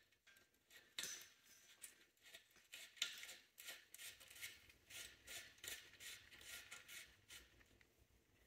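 Faint clicking and light scraping as a metal hose fitting is screwed by gloved hands into the vacuum differential-lock actuator of a Mercedes G W463 transfer case. The sharpest clicks come about one and three seconds in.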